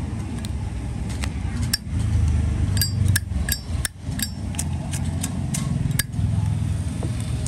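Zippo lighter's hinged lid flicked open and snapped shut again and again: a string of sharp metallic clicks and clinks, some ringing briefly, over a steady low rumble.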